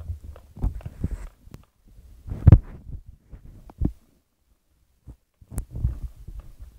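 Handling noise on a phone's microphone: irregular low thumps and rubbing as the phone is grabbed and moved, loudest about two and a half seconds in, with a pause after about four seconds before more bumps.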